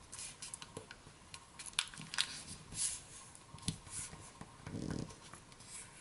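Faint, scattered rustles and light taps of a sheet of origami paper being folded and its crease pressed flat by hand.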